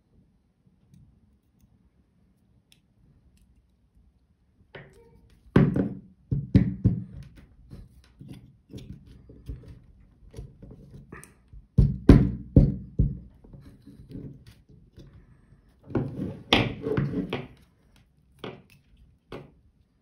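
Knocks, clicks and rattles of a small metal-framed transformer and a pair of pliers being handled on a table, in several short bursts starting about five seconds in.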